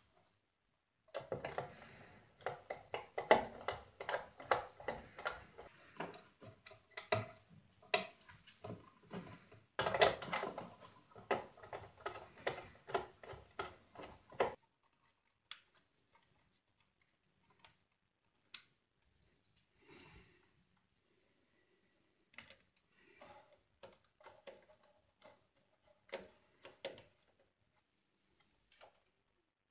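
Small screwdriver working wire terminal screws: a dense run of rapid clicking for about thirteen seconds, then scattered light clicks and taps.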